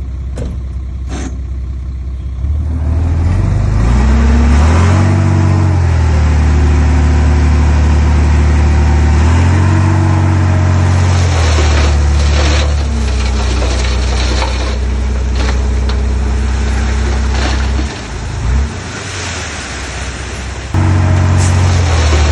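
Heavy diesel engine of earthmoving machinery working under load, revving up and easing off several times, with a brief drop in power late on before it picks up again.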